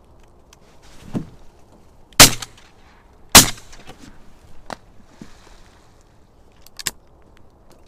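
Shotgun fired twice, the two loud shots about a second apart, each trailing off briefly. Fainter knocks come before and after the shots.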